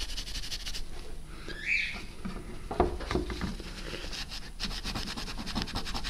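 Paper tissue damp with mineral turpentine rubbed back and forth over a graphics card's GPU die, a papery scrubbing of many short scratchy strokes as old, dried-out thermal paste is wiped off.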